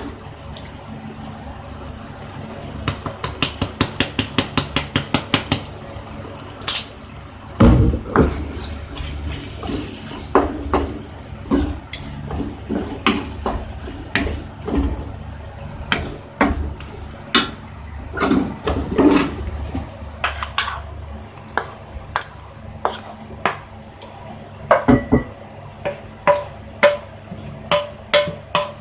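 Wooden spatula stirring and scraping a thick, simmered curry in a non-stick pan, with repeated clicks and knocks against the pan and a few heavier thumps, over a steady hiss.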